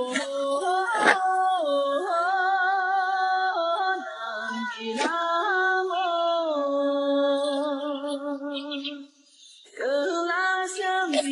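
A woman singing long, held notes with vibrato and no clear words, breaking off briefly about nine seconds in before carrying on.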